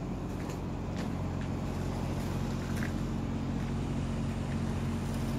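A steady low mechanical hum, like a running engine, with a few faint clicks over it.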